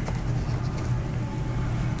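A steady low background hum, with one light click right at the start as the cardboard card box is handled.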